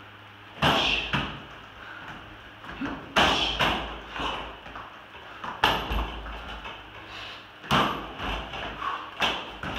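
Strikes and blocks landing on a spinning-bar training dummy: pairs of sharp knocks about every two seconds as the arm is hit and swings round.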